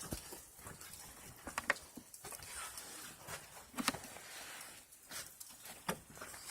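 Scattered light clicks and taps, about five of them, from the small generator's plastic housing being tipped back and handled.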